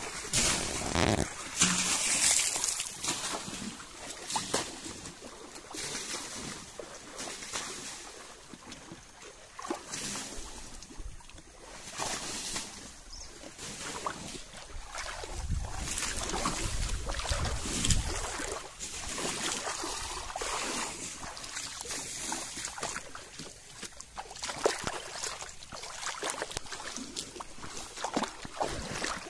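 Water splashing and trickling, with wet rubbing, as a soapy motorcycle is scrubbed by hand in shallow pond water. A low rumble runs for a few seconds about halfway through.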